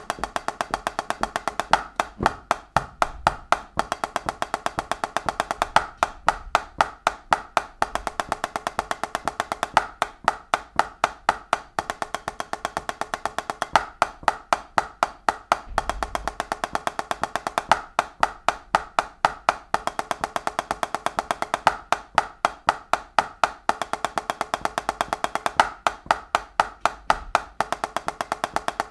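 Drumsticks playing fast, even single strokes, hand to hand, in repeating groups of four and eight, a snare drumming rudiment exercise for opening up the singles. The strokes come as a steady, rapid stream with regular accented peaks.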